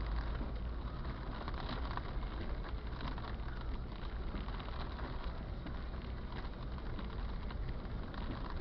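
Heavy rain falling, a dense steady patter of drops over a low rumble.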